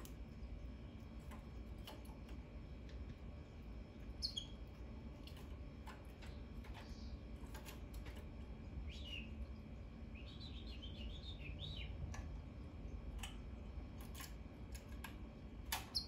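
A caged goldfinch × African canary hybrid calling softly. There is a falling chirp about four seconds in, a short twittering phrase later on, and a sharp chirp near the end, among scattered light clicks.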